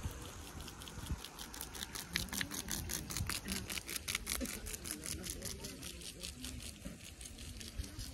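Impact sprinkler heads on tall risers ticking steadily as they spray, several sharp ticks a second, with wind rumbling on the microphone.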